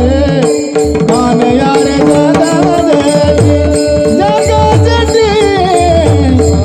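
Devotional kirtan music: a held, ornamented melody with sliding pitch over a steady harmonium drone, with hand-drum strokes and small hand cymbals keeping a regular beat.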